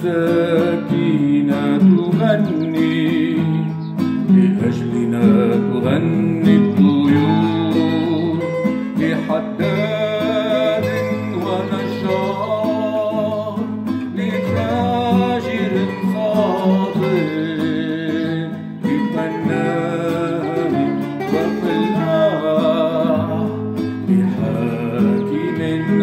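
Nylon-string classical guitar playing an instrumental passage of the song, picked melody over chords, with a wavering, held melody line above it.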